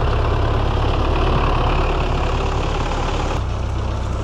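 Diesel tractor engine running steadily with a deep, evenly pulsing note, easing slightly about three and a half seconds in.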